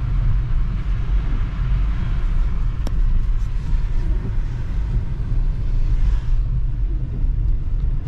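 Car cabin noise while driving on a snowy road: a steady low rumble of tyres and engine with a fainter hiss over it, and one faint click about three seconds in.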